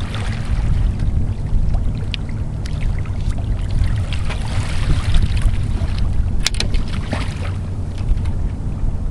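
Low, buffeting wind noise on the microphone over outdoor water ambience, with a quick cluster of sharp clicks about six and a half seconds in.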